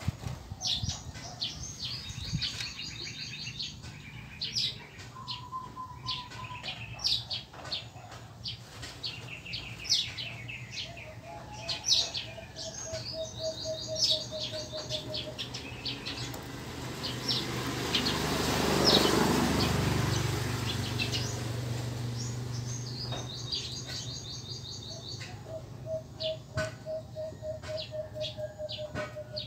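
Songbirds chirping and trilling, with runs of quick evenly repeated call notes. There are a few light clicks. A louder rushing sound swells and fades about two-thirds of the way through.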